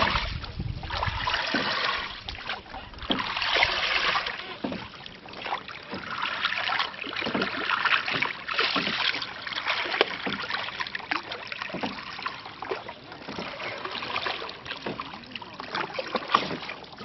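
Oars working the water of a small rowing boat: splashing and trickling that swell in irregular surges every few seconds, with small splashes and drips between them.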